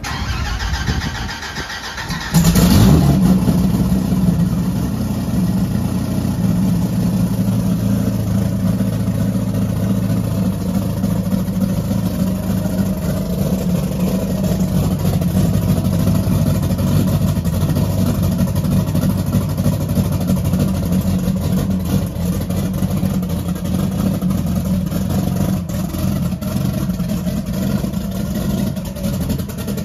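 Twin-turbo 2014 Dodge Viper's 8.4-litre V10 being started: the starter cranks for about two seconds, the engine catches suddenly, then settles into a steady idle.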